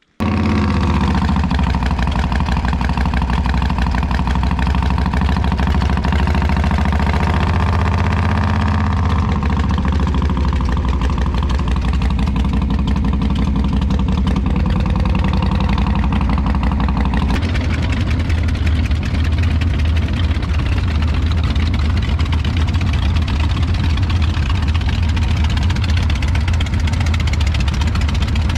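Several chopper motorcycles' V-twin engines idling, a loud, steady low rumble. The sound shifts abruptly a little past halfway.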